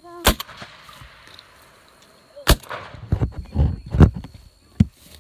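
Two shotgun shots at doves, about two seconds apart, the first echoing. They are followed by a run of low thumps and a smaller knock near the end.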